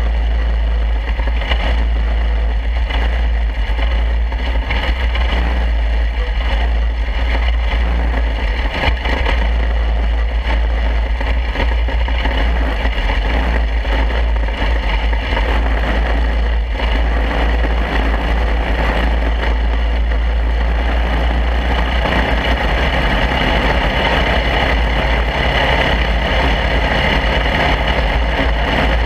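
Onboard sound of a mini wedge dirt-track race car's small engine running at racing speed, under a constant heavy wind rumble on the camera microphone. The engine grows louder and brighter about two-thirds of the way through.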